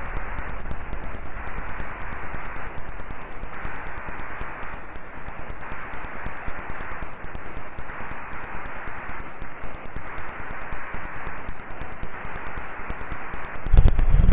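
Hiss and static on a simple computer microphone's home recording, swelling and fading in a slow pulse about once a second, with faint crackling. The uploader does not know what causes it. A louder low rumble comes in near the end.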